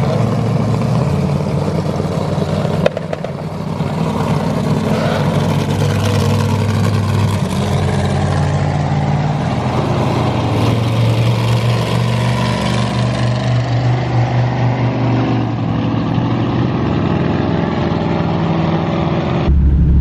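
A vehicle engine runs at a steady drone that shifts pitch several times, as with gear or throttle changes, over road and wind noise while driving.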